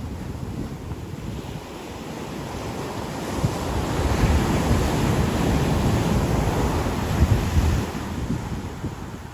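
Ocean surf on a beach: a wave swells about three seconds in, breaks and washes in, and eases off near the end. Wind buffets the microphone, adding an uneven low rumble.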